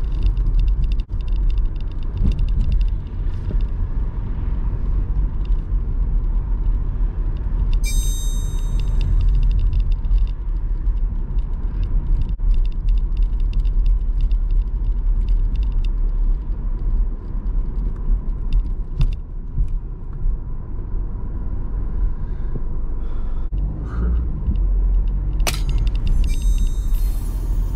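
Car driving through city streets, heard from inside the cabin: a steady low rumble of road and engine noise. A brief high squeal comes about eight seconds in, and a sharp click near the end.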